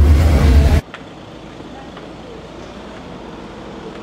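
A loud low rumble with hiss cuts off abruptly under a second in. Steady road-traffic noise follows, from cars driving along a town street.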